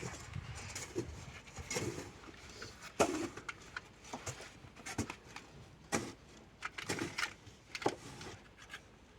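Knife working on the insulation of a thick 300 sq mm power cable: irregular scrapes and sharp clicks as the layer is cut and stripped.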